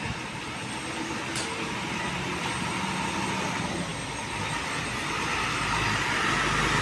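Intercity coach's diesel engine running as the bus pulls away and drives close past, getting steadily louder.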